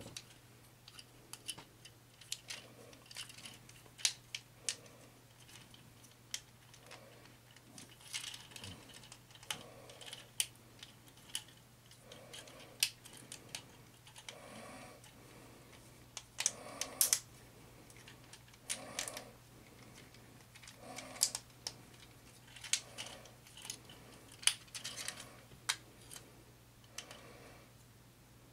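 Plastic parts of a Transformers Studio Series Leadfoot action figure clicking and rattling irregularly as it is twisted and folded by hand into its race-car mode, with the head and hood being worked into place.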